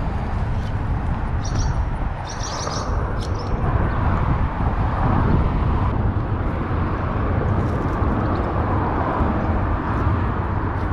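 Steady highway traffic noise that swells gently around the middle and again near the end, with a few short high chirps about one and a half to three seconds in.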